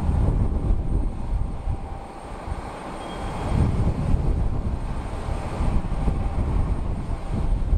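Jet aircraft engine noise around the airport, a steady rumble that dips briefly about two seconds in and builds again, with gusts of wind buffeting the microphone.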